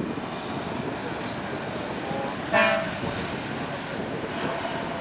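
Steady rushing noise of a distant jet airliner's engines. About two and a half seconds in comes one short, loud, horn-like toot.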